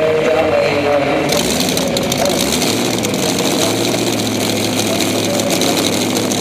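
Tractor engine idling with a steady low hum; a loud hiss joins suddenly about a second in and holds.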